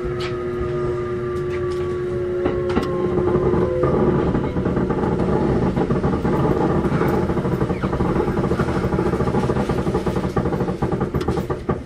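Kintetsu 1201 series electric train running: motor whine in several tones falls slowly in pitch as the train slows and breaks off about four seconds in. Then wheel and rail clatter takes over, getting choppier near the end, typical of slowing into a station.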